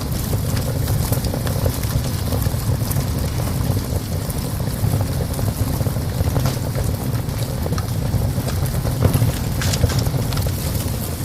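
Wood fire burning in a small stove, crackling with scattered sharp pops over a steady low rumble.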